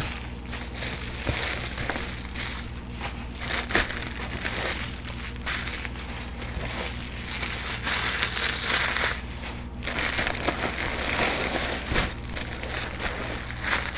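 Plastic bubble wrap crinkling and crackling as it is handled and pulled off packed items, with many small crackles throughout.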